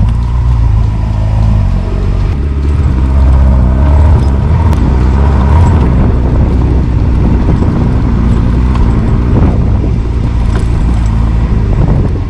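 Honda CBF600's inline-four engine running under way, its note shifting as the revs change about two seconds in.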